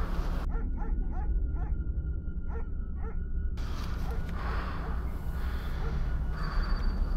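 A dog barking in a quick run of about six short yips that stop about three and a half seconds in, over a steady low rumble.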